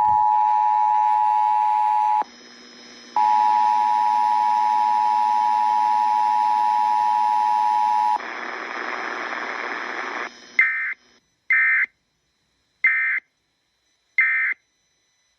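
Emergency Alert System attention signal, a steady two-note alert tone, drops out for about a second two seconds in, then resumes. About eight seconds in it gives way to a couple of seconds of hiss, followed by four short bursts of EAS digital data tones, the end-of-message code.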